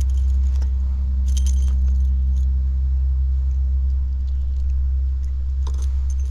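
A steady low rumble, with a few brief light metallic jingles about a second in and again near the end.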